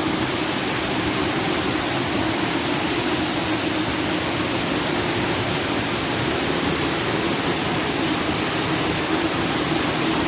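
Dry Falls waterfall rushing: a steady, unbroken hiss of falling water close by.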